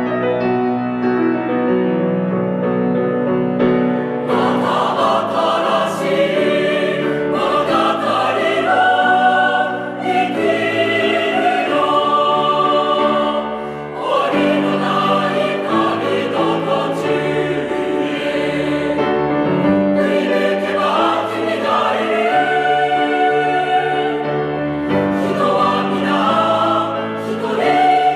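Background music: a choir singing with piano accompaniment.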